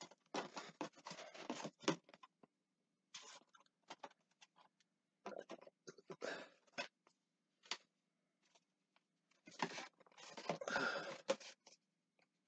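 Packaging being handled and unwrapped: irregular crinkling, rustling and scraping in four bursts of a second or two each, with scattered small ticks between them.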